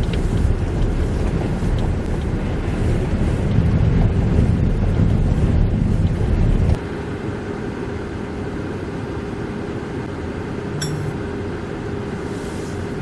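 Strong blizzard wind buffeting the microphone with a loud low rumble. About seven seconds in it cuts off abruptly, and a quieter steady drone with a faint held tone follows.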